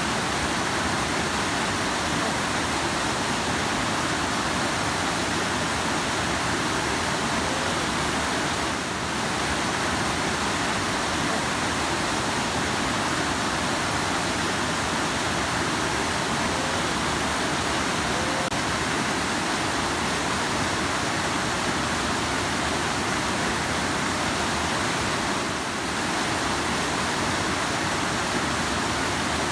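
Rushing river: a steady, dense rush of flowing water, dipping slightly twice.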